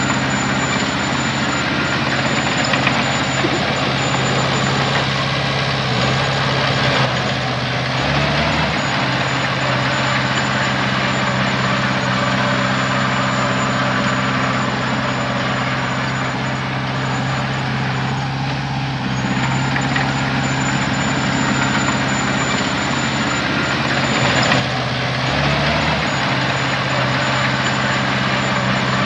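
Heavy diesel engine running steadily, with brief shifts in engine pitch about eight seconds in and again about twenty-five seconds in.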